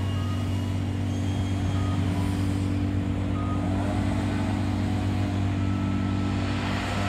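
Street traffic at an intersection: a steady low motor hum with cars driving through. The hum drops away near the end.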